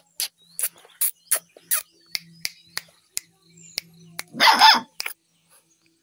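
A dog gives one short, loud bark about four and a half seconds in, among a string of sharp, irregular clicks.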